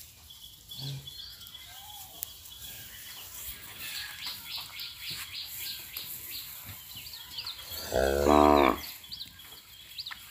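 A single short moo from the cattle, under a second long, about eight seconds in.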